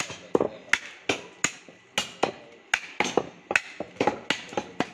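Heavy cleaver chopping beef on a round wooden log block: a quick, fairly regular series of sharp chops, about two to three a second, as the blade cuts through the meat into the wood.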